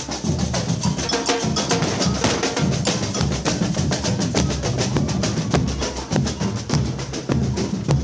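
Marching procession drums beating, with many sharp snare-like strikes over a low bass-drum pulse.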